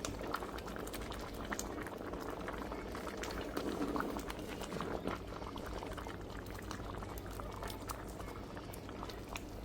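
A pot of dal khichri in coconut milk and water boiling steadily on the stove, bubbling continuously with many small pops.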